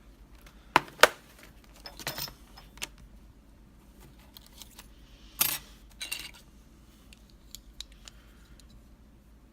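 Small metal lock parts clicking and clattering as the Mul-T-Lock Junior is taken apart by hand: two sharp clicks about a second in, then scattered light taps, with a louder pair of clicks around the middle.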